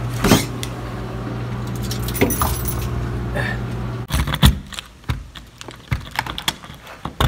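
A bunch of keys jangling, with sharp clicks and knocks of a door lock and doors being handled, mostly in the second half. A steady low hum runs under the first four seconds and cuts off abruptly.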